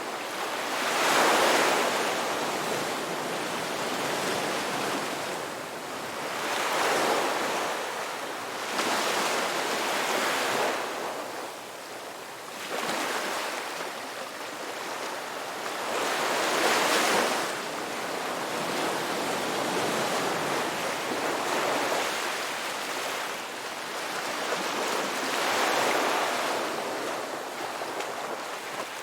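Ocean surf breaking and washing up a beach. Each wave swells into a loud rush and then ebbs, one after another every few seconds.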